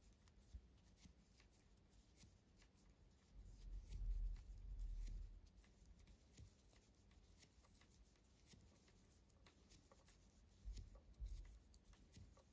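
Faint light clicking and rubbing of metal knitting needles and yarn as stitches are purled, with a low rumble of handling twice, about three and a half seconds in and near eleven seconds in.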